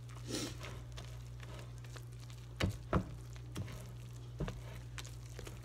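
Pancake batter being stirred by hand in a glass bowl, the mixing utensil knocking against the bowl several times, with a pair of louder knocks about halfway through. A steady low hum runs underneath.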